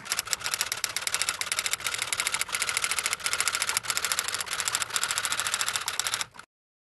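Rapid mechanical clicking sound effect, about ten clicks a second, running evenly while text is written onto the screen and cutting off suddenly near the end.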